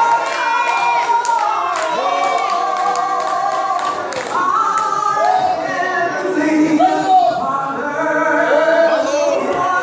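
A woman singing a gospel hymn into a microphone, holding long notes.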